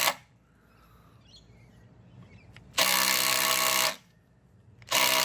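Makita cordless impact driver, set to its automatic mode, running in short bursts. One run cuts off at the very start, one lasts about a second near the middle, and another starts just before the end.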